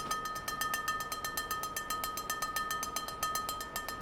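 Rapid, even mechanical or electronic clicking, about eight clicks a second, over a steady high tone.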